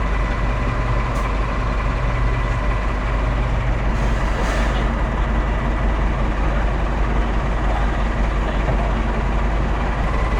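Class 14 diesel-hydraulic locomotive's engine running steadily with a deep even throb.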